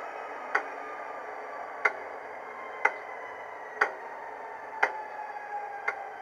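Class 66 diesel sound from a TTS sound decoder, played through an EM2 speaker in a stationary model locomotive. A steady engine hum runs with tones that slowly fall in pitch, and sharp clicks come about once a second.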